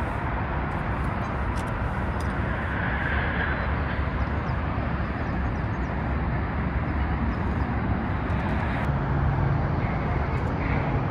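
Steady rumble of traffic on the elevated freeways overhead, an even low noise with no break. About nine seconds in, a low steady drone joins it.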